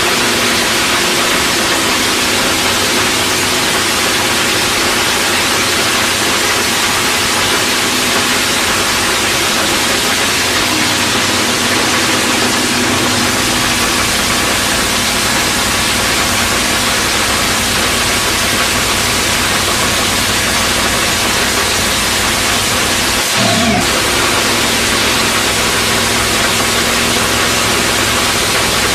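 Top fuel dragster's supercharged nitromethane V8 running loud and steady in a fuel burn-off, with a brief rise in pitch about 23 seconds in.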